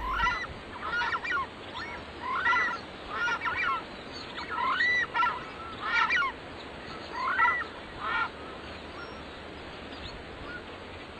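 Southern screamers giving a run of about a dozen short honking calls, some in quick pairs, which stop about eight seconds in.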